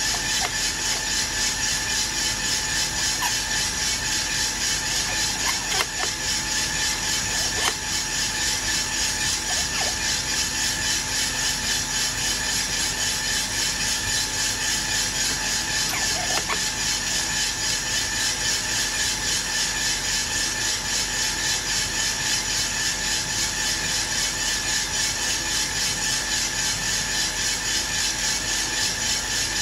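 Aillio Bullet R1 V2 drum coffee roaster running mid-roast, with the beans at about 155 °C: its drum turning and the beans tumbling inside in an even pulsing rhythm over a steady fan and motor hum. A few clicks and knocks come from the metal sample trier being drawn out and slid back in.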